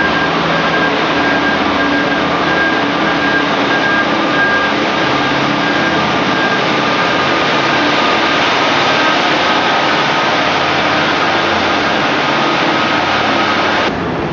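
Heavy construction vehicle's diesel engine running close by inside a concrete tunnel: a loud, steady engine noise with a faint whine over it.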